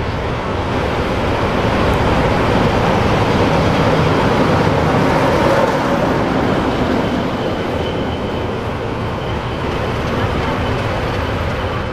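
CFR class 60 diesel-electric locomotive's Sulzer diesel engine running as the locomotive runs light past at low speed. It grows louder as it approaches, is loudest as it passes about halfway through, and fades as it moves away.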